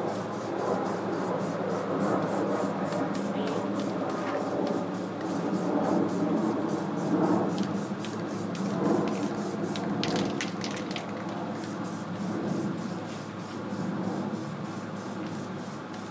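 Aerosol spray paint can hissing in continuous sprays, swelling and easing as a light first coat of paint goes onto a snow plow blade.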